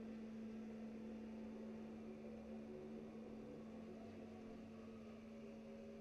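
Samsung Powerbot VR7000 robot vacuum running on carpet, heard faintly as a steady, unchanging hum.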